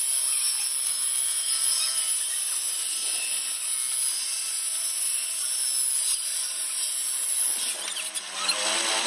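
Homemade table saw, driven by an electric motor under the table, ripping a long board: a steady high-pitched blade whine and hiss. About eight seconds in the sound turns rougher and uneven as the cut strip comes off the blade.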